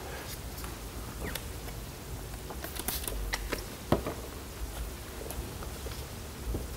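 Faint handling sounds on a painted car panel: light scratching and rubbing with scattered small clicks as sanding pads and a microfibre towel are handled, one sharper click about four seconds in.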